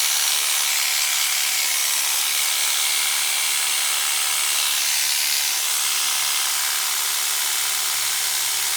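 Electric dog-grooming clipper running steadily with a freshly sharpened Artero blade fitted, an even high-pitched buzz. It is being test-run to check the blade for a rattle.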